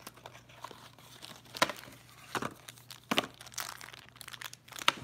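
A small cardboard blind-box of collectible pins and its shiny inner wrapper being torn open by hand: crinkling and tearing, with a handful of sharp crackles over softer rustling.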